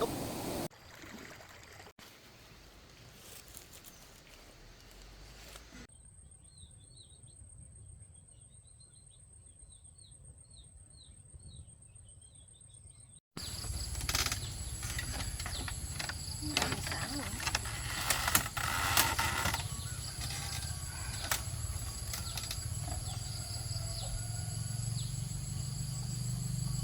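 Rural outdoor ambience: insects keep up a steady high-pitched shrill, and short repeated bird chirps come through in the quieter stretch. It grows louder after a cut about halfway through.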